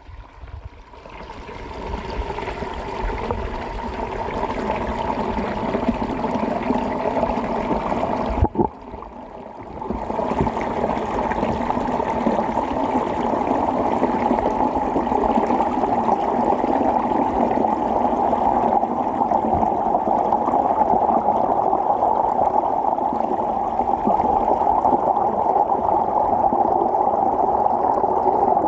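Water rushing and gurgling as heard underwater, a steady muffled wash with little treble. About eight seconds in there is a brief knock, followed by a quieter second and a half.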